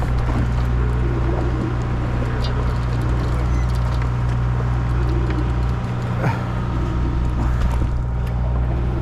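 Sportfishing boat's engine running with a steady low hum, with a few faint short sounds over it.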